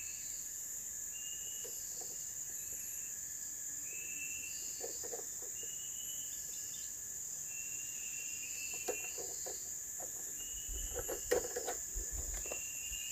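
Steady high-pitched drone of field insects, crickets among them, with short chirps repeating about once a second. A few faint clicks of hands handling a small plastic object come near the end.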